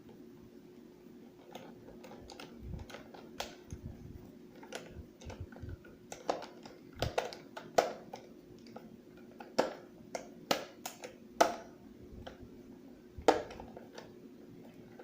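Irregular clicks and knocks of a screwdriver against screws and a hard plastic housing as the back cover is screwed on, sparse at first and louder and more frequent after about six seconds, over a faint steady hum.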